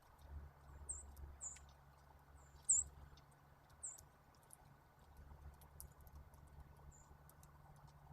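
Short, high chip notes of small songbirds at a backyard feeder, about five single calls spread a second or so apart, the loudest a little before the middle. A steady low rumble runs underneath.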